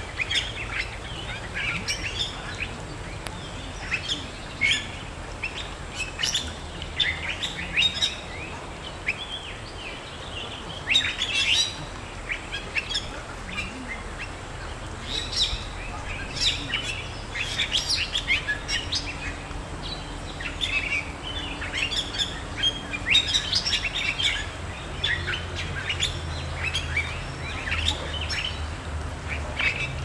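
Birds calling: many short, quick chirps and whistles, one after another, over a low steady rumble.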